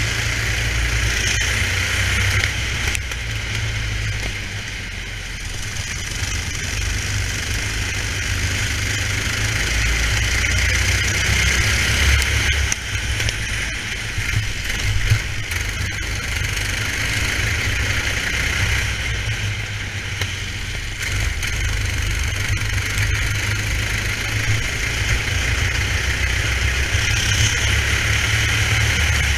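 Racing kart engine running hard, recorded onboard, its level dipping a couple of times and picking up again as the kart goes through corners and down the straights.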